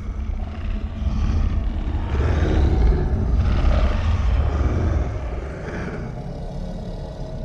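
Kaiju-style Godzilla roar sound effect: a long, deep, rumbling roar that swells over the first couple of seconds, holds at full strength through the middle, then slowly tapers.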